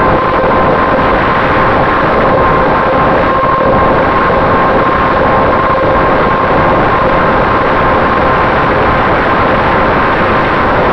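Finwing Traveler RC plane's electric motor and propeller running at a steady cruise, a constant-pitch whine over heavy wind rush on the onboard camera's microphone.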